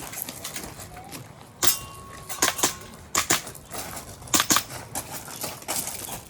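Airsoft gas blowback pistol firing a course of fire: sharp, snapping shots in quick pairs and short strings, starting about a second and a half in.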